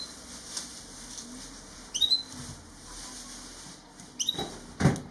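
Gouldian finch giving short, high, squeaky chirps, three of them about two seconds apart, with a thump near the end.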